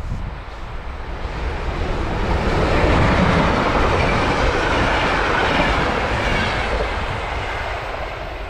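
Electric locomotive-hauled passenger train passing close at speed: wheel and rail noise of the locomotive and coaches builds to its loudest about three seconds in, then slowly fades as the coaches pull away.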